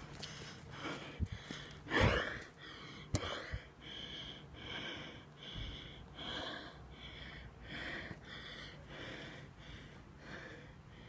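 Soft, rhythmic noises from a person walking with a phone close by, steps and breathing, about one every three-quarters of a second. A louder rush comes about two seconds in, and there are a few sharp knocks from the phone being handled.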